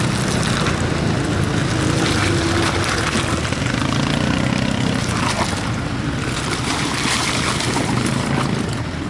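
Jeep Wrangler Rubicon's engine running at low revs as it crawls down a muddy off-road track, with a rough rushing noise over it. It grows slightly fainter near the end as the Jeep moves away.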